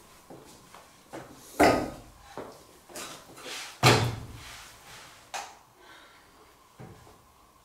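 Knocks and thumps of school furniture as a chair is sat on and shoes are put up on a desk. There are two loud thumps, about a second and a half in and about four seconds in, with lighter knocks between them.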